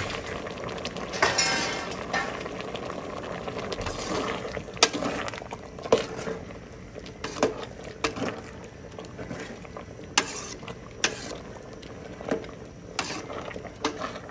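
Bamboo-shoot curry boiling in a metal pot while a metal ladle stirs it, scraping and knocking against the pot about ten times. There is a longer scrape about a second in.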